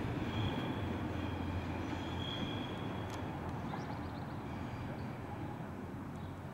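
SBB intercity train of IC2000 double-deck coaches with an Re 460 electric locomotive rolling away over the station switches. Its low rumble slowly fades, with brief faint wheel squeal in the first half and a single click about three seconds in.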